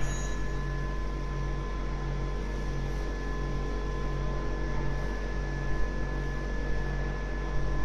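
Wood gasifier generator set running steadily: a low, even machine hum with a faint steady whine above it.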